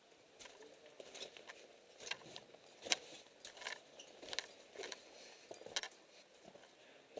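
Footsteps crunching over snow and rock, irregular, one or two a second, with light metallic clinks mixed in.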